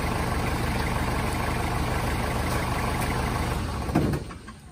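Hindustan Ambassador car's engine running steadily. About four seconds in there is a brief thump, and the engine sound then drops away sharply.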